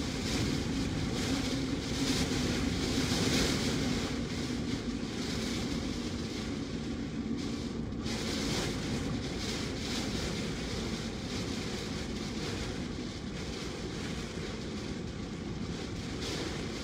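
Strong hurricane wind, sustained around 50 mph, blowing with driving rain and buffeting the microphone. It gusts harder a few seconds in, then eases slightly.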